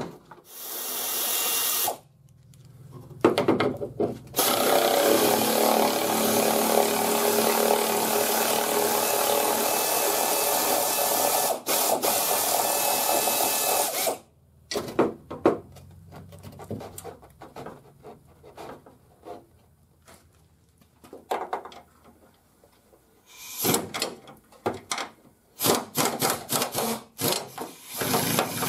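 Pneumatic air ratchet spinning out fender bolts: a short run, then a steady run of about ten seconds with the hiss of its air exhaust. After that come short bursts and clicks as the ratchet is worked on the next bolts.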